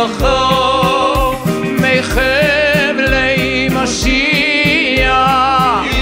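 Chassidic song: a singer holds long, wavering notes over a band with a steady beat.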